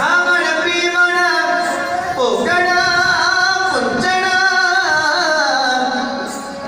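A voice singing long held notes that slide in pitch over instrumental music, played loudly. The music dips briefly near the end.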